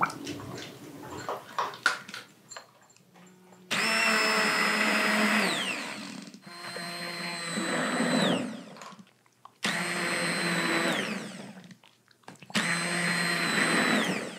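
Handheld immersion blender pureeing cooked green tomatoes and onions in a slow cooker. The motor starts about four seconds in and runs in four bursts of about two seconds each, its whine dropping as it spins down after each burst.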